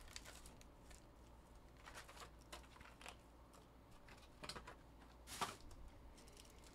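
Near silence with faint, scattered clicks and light rustles of small handling noises; a slightly louder rustle about five and a half seconds in.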